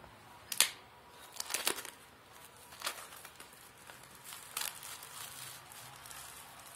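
Smartphone retail packaging being handled and opened: a few short, sharp crackles and crinkles, the loudest about half a second in and a cluster around a second and a half.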